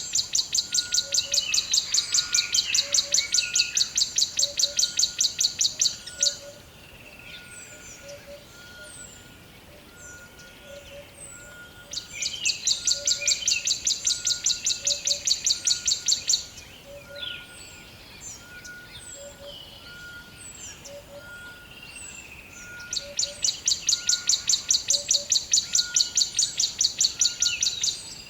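Rainforest animal chorus: a loud, rapid, evenly pulsing high trill of about five pulses a second comes in three bouts of roughly four to six seconds each. Between and under them run soft pips repeated about once a second and scattered short, high, falling chirps.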